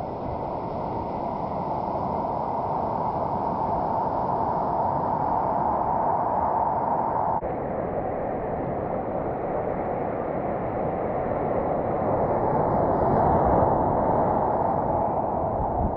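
Steady rushing of ocean water and wind on a helmet-mounted GoPro as it sits low in the surf lineup. The sound breaks off abruptly about seven seconds in and picks straight up again.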